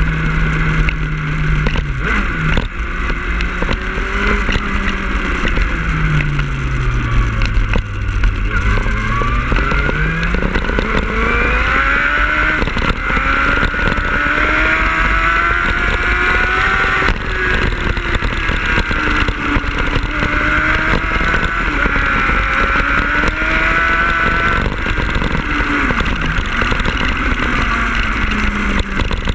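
2005 Yamaha YZF-R1's inline-four engine running under way, with wind rush. Its pitch drops for a few seconds about six to eight seconds in, then climbs and rises and falls with the throttle.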